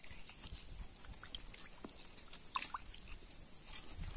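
Water sloshing and splashing faintly in an enamel basin as hands scrub a roasted mole carcass, with scattered small wet clicks and drips.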